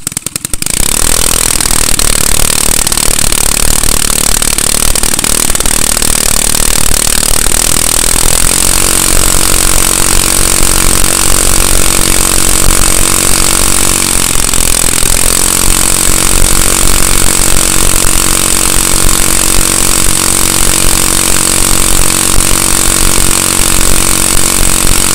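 Small single-cylinder Honda go-kart engine catching on a pull start, primed with starting fluid sprayed into the carburetor, then running steadily and loudly. About fifteen seconds in its speed sags briefly and recovers.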